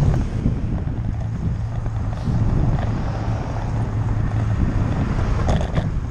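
Wind buffeting the microphone of a handlebar-mounted camera on a moving bicycle, a steady low rumble of the ride with a constant hum underneath.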